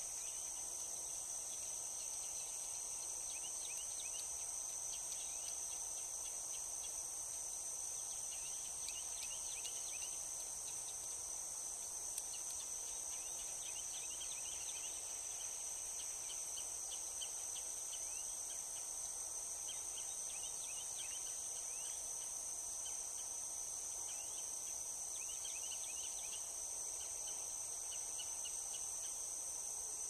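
Steady high-pitched chorus of insects, with short chirping bird songs breaking in over it every few seconds.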